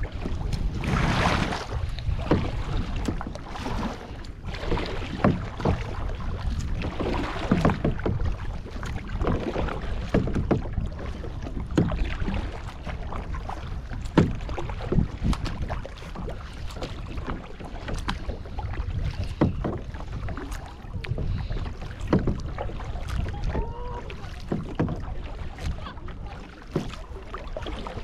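Kayak paddle strokes splashing and water lapping against a sit-on-top kayak's hull, over a steady low rumble of wind on the microphone.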